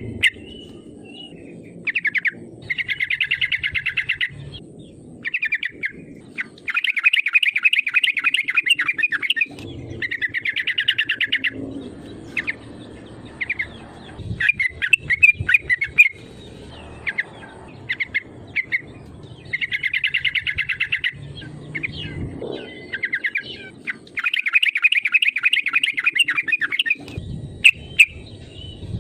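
Yellow-vented bulbul (trucukan) singing: phrases of rapid, bubbly, chattering notes, each lasting one to two seconds, repeated every few seconds with short chirps between them. This is a lively song used as a lure call to provoke other bulbuls into singing.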